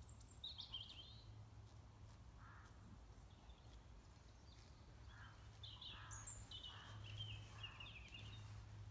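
Faint outdoor ambience: small birds chirping and twittering several times, more of it in the second half, over a low steady hum.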